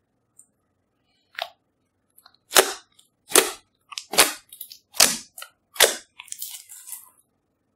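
Glossy slime squeezed and pressed by hand, trapped air popping out in loud, sharp pops. After a faint pop early on, five loud pops come evenly about every 0.8 s from about two and a half seconds in, with smaller crackles between them and after.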